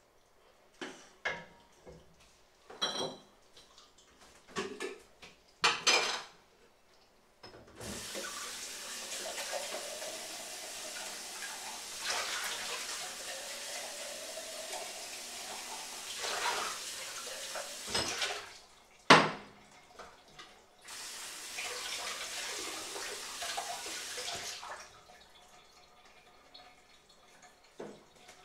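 Kitchen tap running into a sink, on for about twelve seconds and then again for about four, with one loud clatter of dishes in the gap. Before the water starts there are several light metallic clinks of a ladle against a metal strainer.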